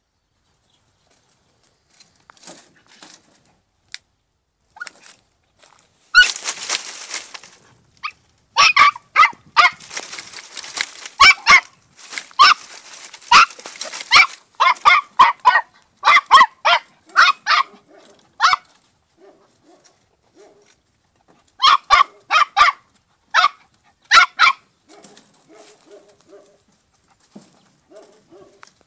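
Podenco puppy barking in short, high-pitched yaps that come in quick groups, with dry branches rustling underneath through the first half.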